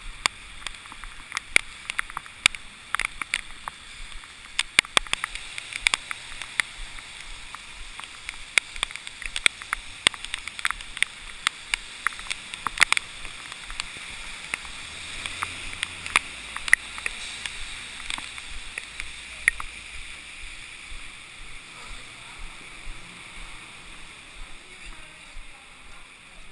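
Handling noise from a camera held or worn close to the body: irregular sharp clicks and knocks over a steady rustling hiss. The clicks thin out after about twenty seconds.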